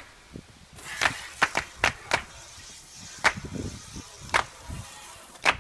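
Hand car wash with a garden hose and long-handled scrub brushes: irregular sharp taps and clacks over a light hiss of water.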